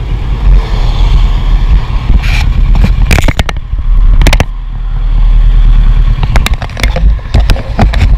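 Loud, uneven low rumble of wind and road traffic on a handheld camera's microphone, with repeated knocks and scrapes as the camera is handled.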